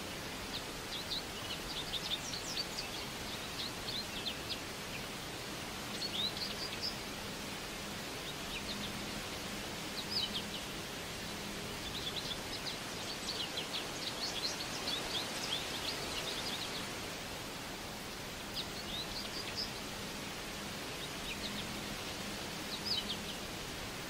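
Forest ambience: a steady background hiss with small birds chirping in quick bursts of short high notes, coming and going throughout, the longest run from about twelve to seventeen seconds in.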